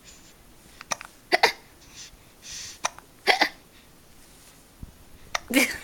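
A two-and-a-half-month-old baby hiccuping: short, sharp hiccups, the clearest two about two seconds apart and another near the end.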